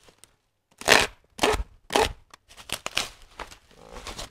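Bubble wrap crinkling and rustling as it is pulled and handled around a cardboard box: three loud bursts about half a second apart starting about a second in, then a softer run of crackling.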